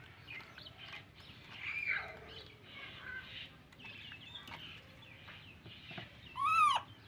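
High-pitched animal calls: a scatter of short chirps and squeaks, then one loud call that rises and falls in pitch about six and a half seconds in.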